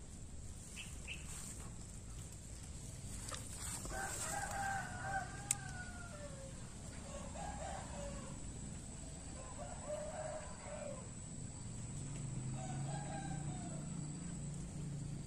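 Four drawn-out bird calls, each about one to one and a half seconds long, some dipping in pitch at the end, spaced a few seconds apart. There is a single sharp click about five seconds in, over a faint steady low hum.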